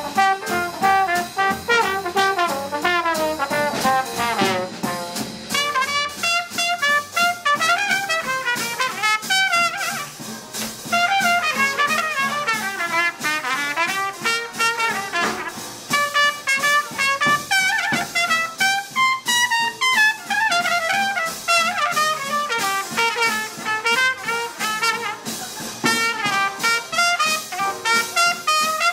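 Live small-band swing jazz: a trumpet plays the melody over a rhythm section of upright bass, piano, guitar and drums, with a steady swinging beat.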